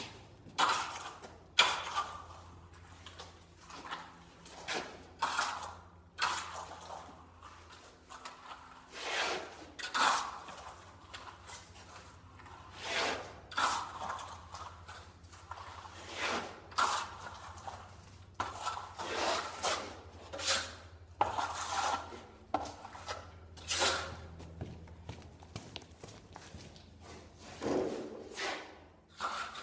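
Steel plastering trowel scraping white set plaster across a wall in short strokes, about one a second, with a few sharper knocks in between.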